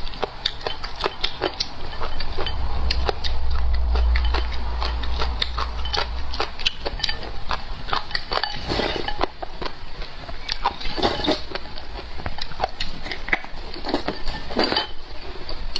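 Close-miked crunching and chewing of crisp pickled shredded papaya, with many irregular sharp crunches. A low rumble sits under roughly the first six seconds.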